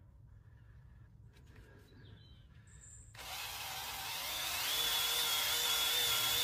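Drill motor starting about three seconds in and running with a steady whine, driving a belt that rubs around a car's metal exhaust tip to polish it, with a hiss of rubbing.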